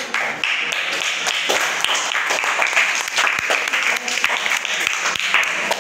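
A classroom of children clapping hands together in steady, dense applause.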